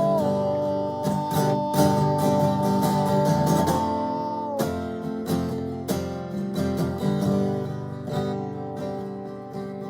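Acoustic guitar strumming chords, an instrumental passage between sung lines, with two steady held notes over it for the first half, growing gradually softer toward the end.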